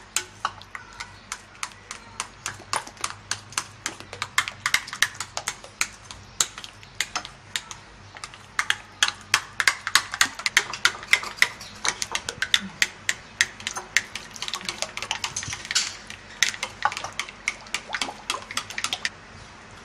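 Hands kneading soft flour dough in a ceramic plate, with quick irregular clicks and taps, several a second, as the hands and plate knock against each other and the table.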